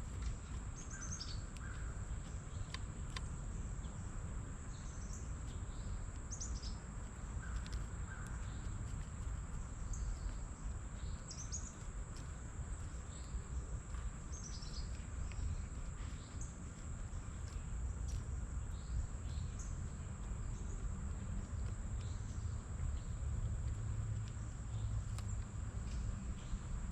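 Small wild birds chirping in short, scattered calls over a steady low rumble, with a constant high-pitched whine throughout.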